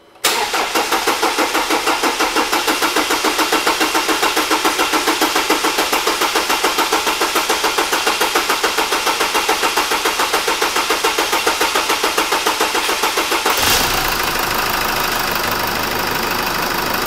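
Jeep Wrangler diesel engine being cranked by its starter in a long, even rhythm of about five pulses a second. This is a first start attempt on freshly fitted injectors. A little past thirteen seconds it fires and settles into a steady idle; the owner puts the long crank down to air in the fuel lines.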